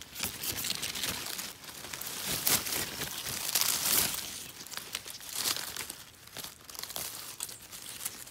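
Irregular rustling and crinkling of dry leaf litter and twigs on the forest floor as a gloved hand pushes in among them, loudest around the middle.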